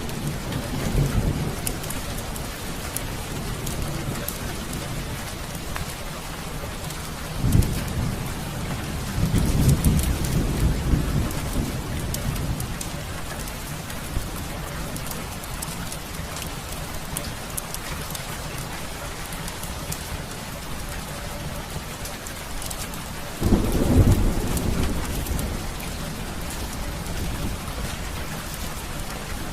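Heavy rain falling steadily, with thunder: a sharp clap about seven seconds in, a rolling rumble a couple of seconds later, and the loudest rumble about three-quarters of the way through.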